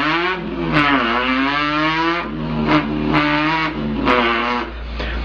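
A man imitating an import car's engine with his voice: a buzzing, revving drone whose pitch climbs, with short breaks between the climbs like gear shifts.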